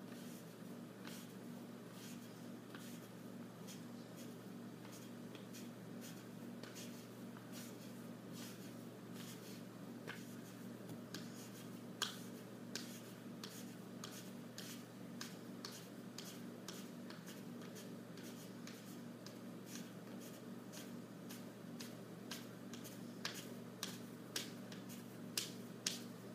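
Scattered sharp clicks and taps at an uneven pace, a few louder ones near the middle and toward the end, over a steady low hum.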